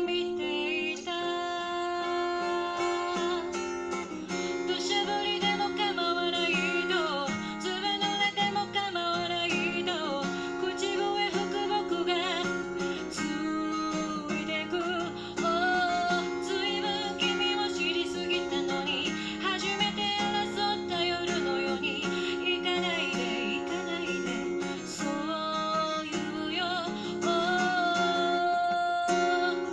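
Live acoustic duo: a woman singing over a steel-string acoustic guitar played alongside her.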